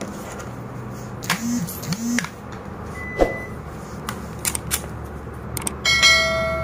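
Mouse-click sound effects, then near the end a bright ringing bell chime, the typical sound effects of a subscribe-and-notification-bell button animation, over a steady low hum.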